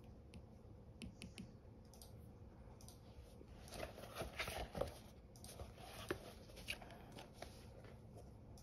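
Apple Pencil and fingertips on an iPad's glass screen: a few light taps about a second in, then a short run of scratching and rubbing strokes with taps in the middle, and a few more light taps after.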